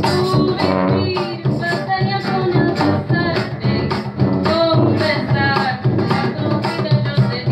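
Live acoustic music: an accordion and a strummed acoustic guitar playing a Latin American-style song together, over a steady beat of short percussive strokes.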